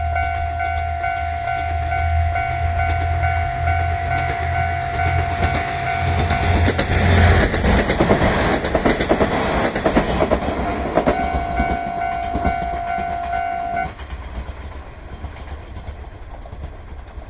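A 1500-type diesel railcar rumbles up and passes over a level crossing with loud wheel clatter. The crossing's warning bell rings steadily throughout and stops near the end, after the railcar has gone by.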